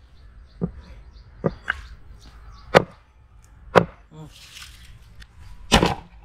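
Heavy chopping blows on wood, about seven sharp strikes at uneven intervals of roughly a second, two of them close together about a second and a half in, and the loudest near the end.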